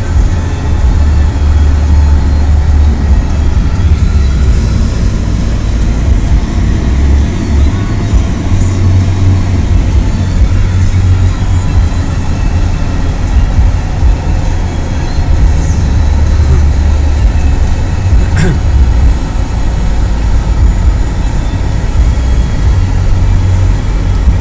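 Steady low rumble of road and wind noise from a car driving on the highway, swelling and easing, with a single sharp click about eighteen seconds in.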